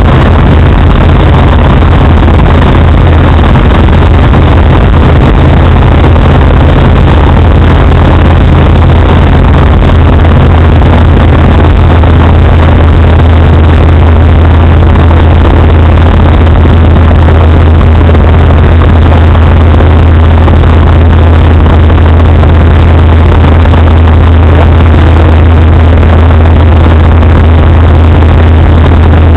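Eurostar microlight's engine and propeller running steadily in flight, heard from the cockpit as a loud, even drone under a rush of air noise.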